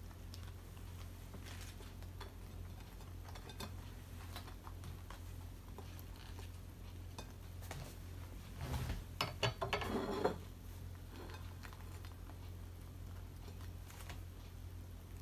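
Faint handling ticks, then about nine seconds in a brief clatter of a few knocks and a short scrape as a kitchen knife and a ceramic plate are set down on the wooden cutting board and table. A low steady hum runs underneath.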